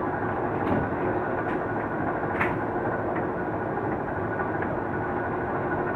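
Diesel locomotive engine idling steadily while the passenger train stands still, with a few short clicks, the sharpest about two and a half seconds in.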